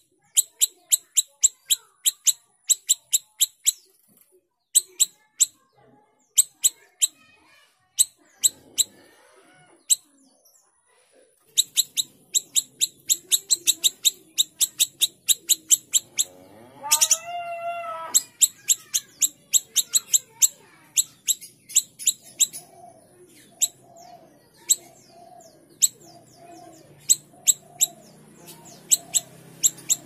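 Siri-siri kecil songbird calling in rapid runs of short, sharp, high chirps, about three or four a second, broken by short pauses. About halfway through, a lower, harsher call with a wavering pitch lasts about a second, and softer low repeated calls sound in the background near the end.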